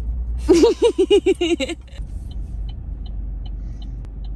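Car cabin with a steady low engine and road rumble. About half a second in, a girl's voice gives a quick run of about eight pitched, rising-and-falling notes lasting about a second, and after it faint regular ticking comes in, about four ticks a second.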